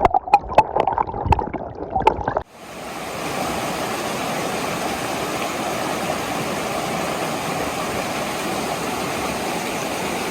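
Water sloshing and gurgling with small clicks. About two and a half seconds in it cuts abruptly to the steady rush of a flowing stream.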